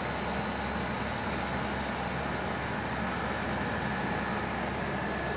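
Steady mechanical hum with a faint high whine that comes in about two seconds in; no distinct events.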